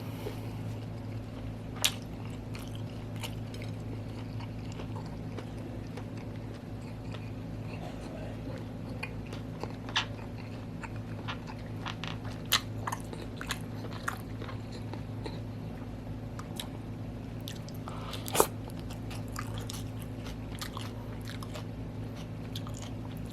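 Close-up mouth sounds of someone chewing and biting cooked octopus: wet chewing with scattered crunchy clicks, a few sharper ones standing out. A steady low hum runs underneath.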